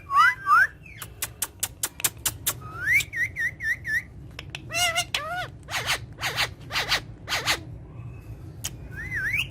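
Parrots whistling and squawking: sliding whistles at the start, a quick run of sharp clicks, a rising whistle breaking into rapid repeated notes about three seconds in, then several harsh screeches, and another whistle near the end.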